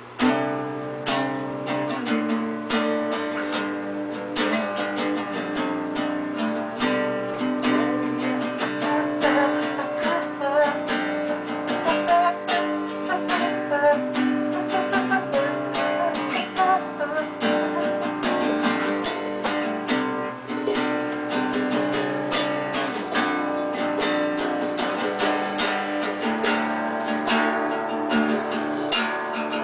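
Acoustic guitar being strummed and plucked, a tune starting abruptly and running continuously.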